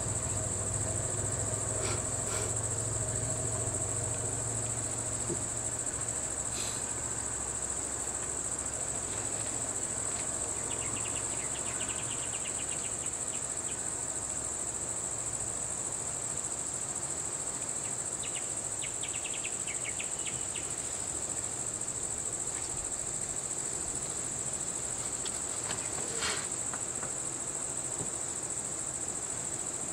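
Steady, high-pitched drone of insects, with two short runs of rapid chirping about a third and two thirds of the way through. A low hum is heard at the start and fades out within the first several seconds.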